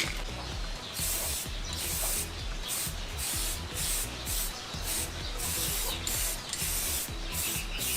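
Repeated short bursts of spray-paint hissing, over background electronic music with a steady bass beat.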